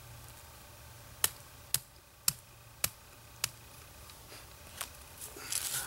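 About five sharp wooden clicks, roughly one every half second, as a wet wooden wedge is tapped by hand into the slot at the top of an axe handle to seat it; a brief rustle near the end.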